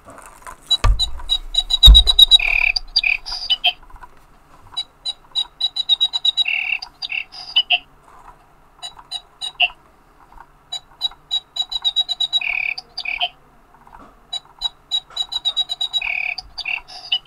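Instachew Sneak Attack battery-operated cat toy playing its built-in bird-tweeting sound: groups of rapid electronic chirps that repeat every few seconds over the steady whir of the motor that turns its feather. Two heavy thumps about one and two seconds in as the toy is handled and switched on.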